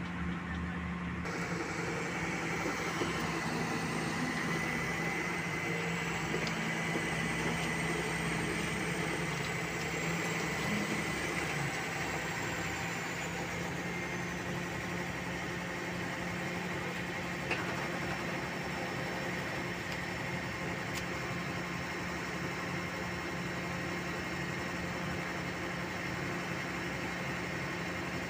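Kobelco hydraulic excavator's diesel engine running at a steady speed, used as a crane to hold the swing circle gear. A steady drone with a level hum, and one faint tick partway through.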